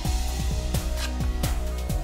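Background electronic music with a beat of deep kick drums that drop quickly in pitch, over sustained synth tones.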